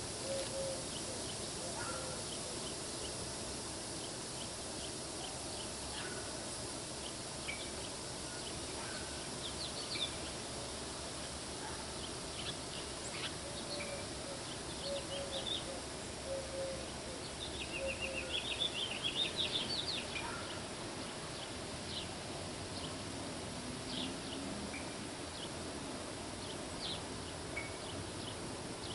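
Outdoor ambience with birds chirping now and then over a steady faint hiss, including a quick trill of repeated high notes about two-thirds of the way through.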